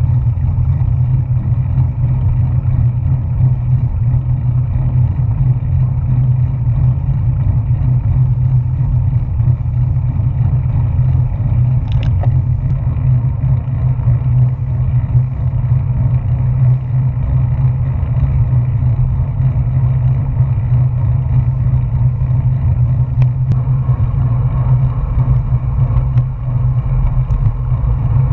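Wind buffeting a GoPro's microphone on a moving road bicycle: a steady, loud low rumble.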